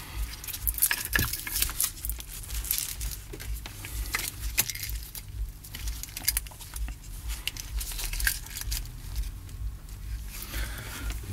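Crinkling, tearing and scattered small clicks: a small AC-adapter power transformer, burnt out and open on one winding, being picked apart by hand to reach the thermal fuse buried in its windings.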